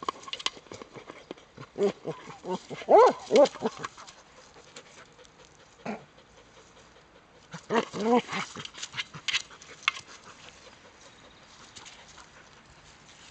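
Border collie giving short, excited high-pitched yelps in two quick bursts, about two seconds in and again around eight seconds in, with scattered light clicks and knocks between.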